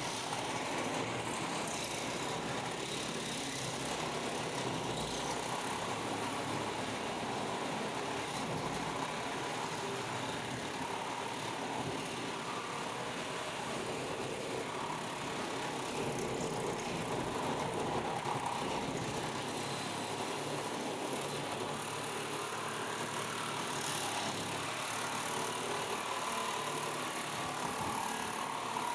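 Reciprocating saw running steadily, its blade cutting through the thin sheet-metal wall of a truck's sleeper cab.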